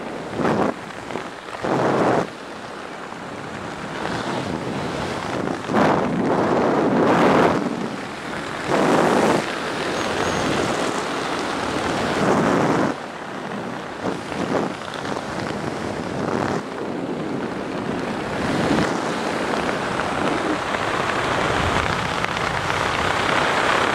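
Wind rushing and buffeting over a camera microphone in the airflow of a skydive, swelling and easing in gusts.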